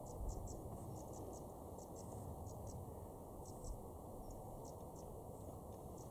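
Faint outdoor ambience: a low steady rumble with short high-pitched chirps or ticks coming irregularly, a few a second.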